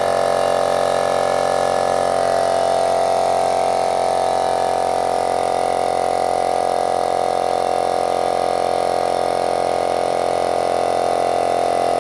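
Small direct-drive piston air compressor with a freshly rewound 2.5 HP single-phase motor, running steadily at an even pitch after being switched on.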